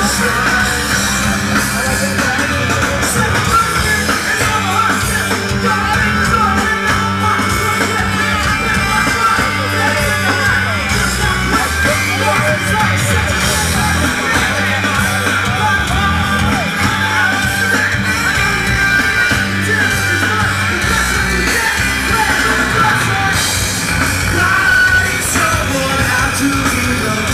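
Live rock band playing loud, with electric guitar and drum kit and shouted vocals.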